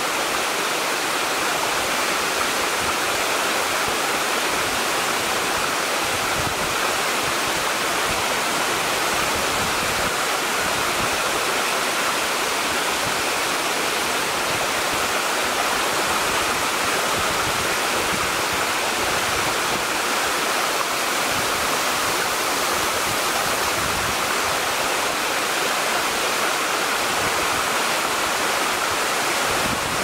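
Twin waterfall, two streams plunging down a rock wall into one plunge pool: a steady, unbroken rush of falling water.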